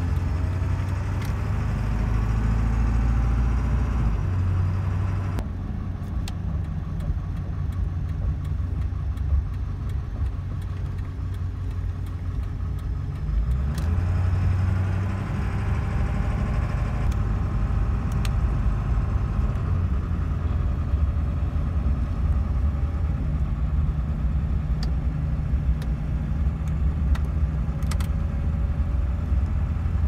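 A 2002 Ford F-250 Super Duty pickup running on a test drive: steady engine and road rumble whose pitch shifts now and then, with a few light clicks scattered through.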